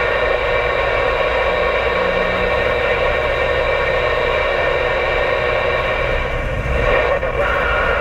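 Steady road and engine noise of a vehicle driving on a highway. A thin steady tone joins near the end.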